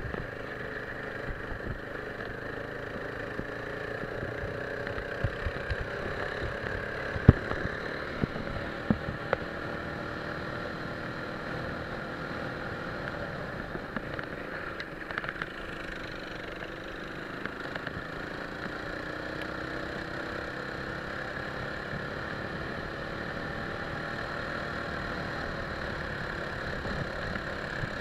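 Go-kart engine running on the move, its pitch rising and falling slowly with speed. A few sharp knocks fall in the first ten seconds, the loudest about seven seconds in.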